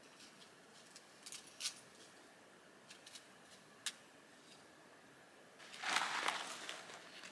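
A few faint scattered clicks, then near the end louder footsteps scuffing and crunching on sandstone and grit as someone walks up close.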